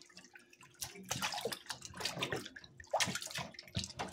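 Water sloshing and splashing in a stainless steel sink as a hand rubs and washes raw pork ribs in vinegar water, in irregular splashes.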